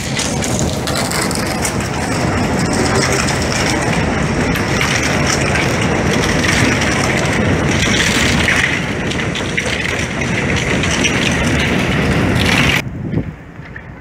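New York subway train running on elevated track: a loud, steady rumble and rattle of steel wheels on rail with a high squeal over it. It cuts off abruptly about a second before the end, leaving a quieter outdoor background.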